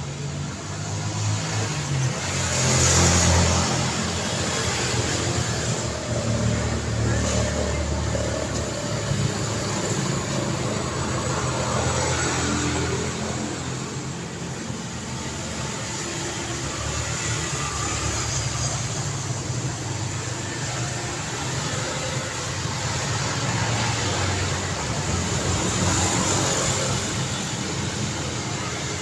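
Busy road traffic: a steady stream of cars and other vehicles passing, their engines and tyres running together. The loudest vehicle passes about three seconds in.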